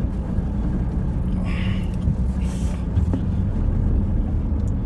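Steady low road and engine rumble inside the cabin of a moving car, with a faint brief hiss about one and a half seconds in and a light click near three seconds.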